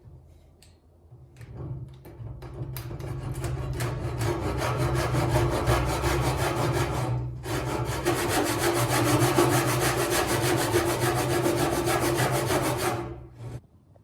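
A hand tool working wood in rapid, rhythmic strokes: a few scattered taps at first, then a steady run of strokes. They break off briefly about seven seconds in, resume, and stop shortly before the end.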